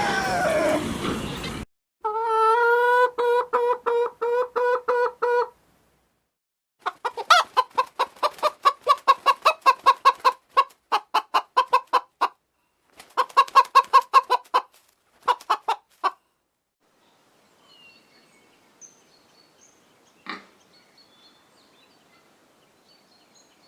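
Chicken clucking in three fast runs of rapid, evenly repeated calls, the first lower in pitch, over about fourteen seconds; a short noisy sound comes just before, and faint scattered ticks and a single click follow.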